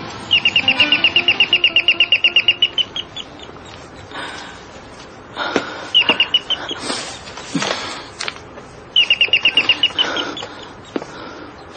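Electric trilling doorbell rung three times: one long ring of rapid, even pulses, then a short ring and another brief ring. A few knocks and rustles fall between the rings.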